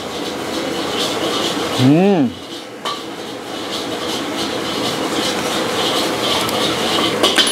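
A metal spoon and fork clinking and scraping on a ceramic plate of fried rice while a man eats. About two seconds in, he gives a short hummed "mmm" that rises and falls as he chews.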